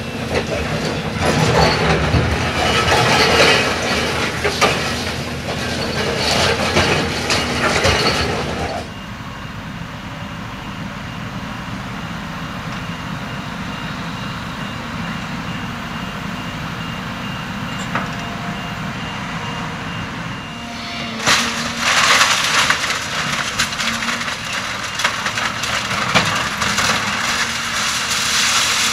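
Hydraulic demolition excavator with a concrete-crusher jaw working a heap of rubble: cracking concrete and clattering debris over the running diesel engine. The crashing eases about nine seconds in, leaving only the steady engine for roughly twelve seconds, then starts again.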